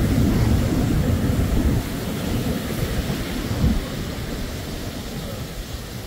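Wind buffeting the microphone: a low, gusty rumble, strongest in the first two seconds and easing after.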